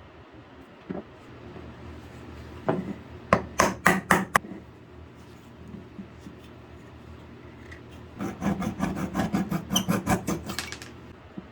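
Repeated short scraping or rubbing strokes, like hand filing: a cluster of about six strokes a few seconds in, then a faster, even run of about fifteen strokes near the end.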